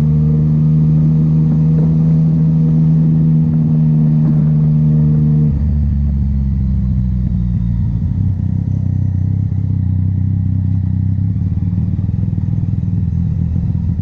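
Yamaha MT-09's three-cylinder engine running steadily at raised revs, then about five and a half seconds in the revs drop suddenly and it carries on at a lower, rougher beat.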